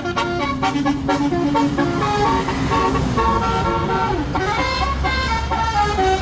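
Tour bus's multi-tone 'telolet' air horn playing a melody, held notes stepping from one pitch to the next, over the rumble of the bus engine.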